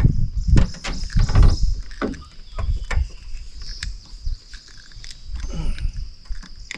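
Scattered clicks and knocks of hands working with fishing gear in a small boat, over a steady high-pitched hum.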